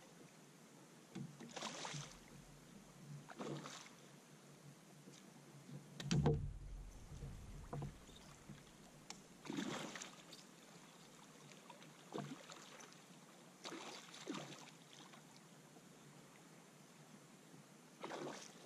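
Hooked smallmouth bass splashing at the surface in several short, faint bursts, with a heavier low thump about six seconds in.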